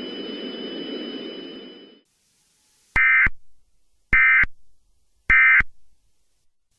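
A background hiss fades out over the first two seconds. Then the Emergency Alert System end-of-message signal sounds: three short, identical bursts of SAME digital data tones about a second apart, marking the close of the alert.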